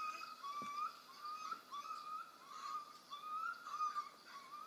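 A puppy crying out over and over in short, high yelps, about one and a half a second, heard faintly through a computer's speakers.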